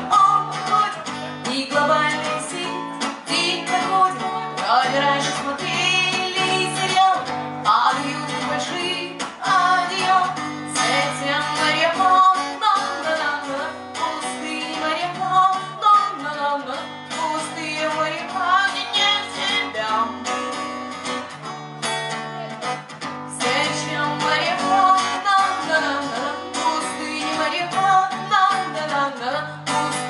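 Live song: a woman singing into a microphone over a strummed acoustic guitar.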